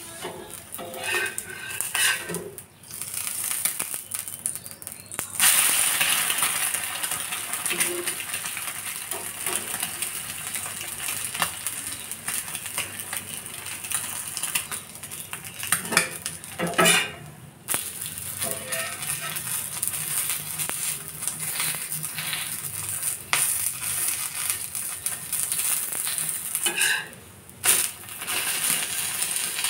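Egg frying in oil on a black iron tawa: steady sizzling that jumps up sharply about five seconds in, as the egg is turned over. A steel spatula clinks and scrapes against the pan a few times.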